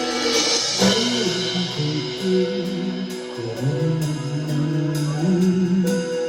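Live band playing during a soundcheck: guitar and drum kit over a moving low line, with steady cymbal ticks and a crash near the start.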